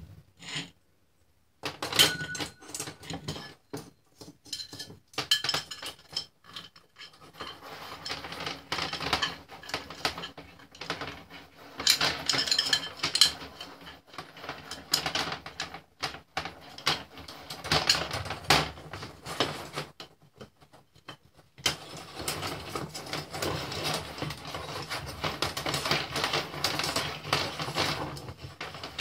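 Steel mainspring from a Cecilian two-spring gramophone motor being handled against its metal spring barrel: repeated metallic clinks and rattles as the coils knock and slide over each other, turning into a steadier scraping rattle in the last several seconds.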